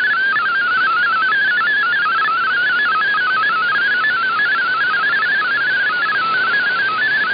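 MFSK32 digital data signal received on shortwave in upper sideband: a single tone hopping rapidly among closely spaced pitches around 1.5 kHz, a continuous warbling stream over steady static hiss. It carries the text that fldigi is decoding on screen.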